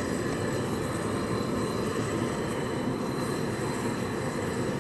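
Gas stove burner running steadily under a steel pot of mutter paneer gravy as it is brought to the boil. A constant low noise with no breaks.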